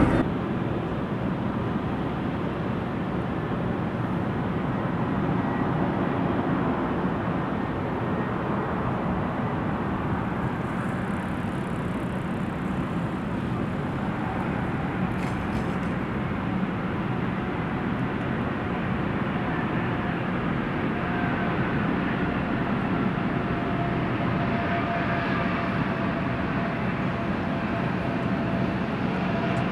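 Airliner engines running at the airport: a steady rush of engine noise with a faint turbine whine that slides down in pitch in the second half, and a higher tone growing stronger near the end.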